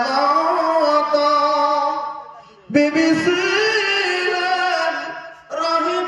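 A preacher's male voice singing long, drawn-out melodic lines, with no instruments. One phrase fades out about two and a half seconds in and a new one starts right after, and another begins near the end.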